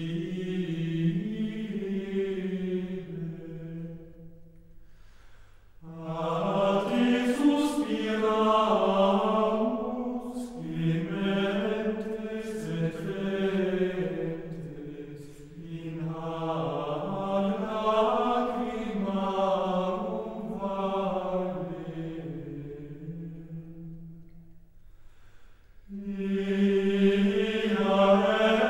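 Gregorian chant: a choir singing a single melodic line in unison, in long phrases with two short pauses, about five and twenty-five seconds in.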